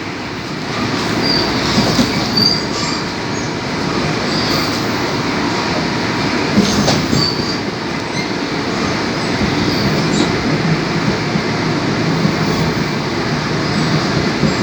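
Sydney suburban electric train running at speed, heard inside the carriage: a steady rumble of wheels on the rails, with several brief high squeals from the wheels in the first half.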